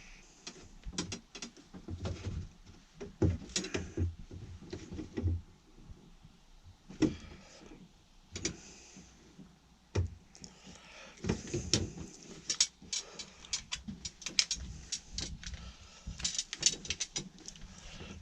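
Irregular clicks, knocks and light scraping as a length of pipe is bent and handled into place to form a 90-degree bend.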